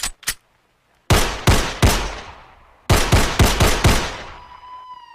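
Gunshot sound effects in a rap track intro: two short clicks, then a volley of three shots followed by a volley of five, each shot ringing out. A steady high tone comes in near the end.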